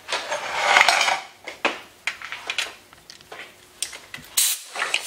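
Light metallic clinks and rattles of a leak-down tester's gauges, brass fittings and hose adapter being handled and fitted to the engine, with a brief hiss about four and a half seconds in.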